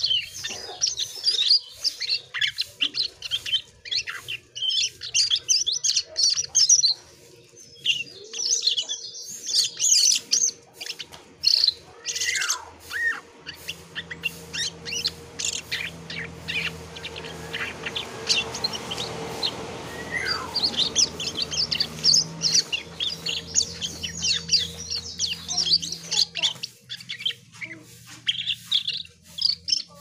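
Asian glossy starling (cucak keling) singing: a rapid, nearly continuous stream of high chirps and whistles with brief gaps, including a couple of downward-sliding whistles.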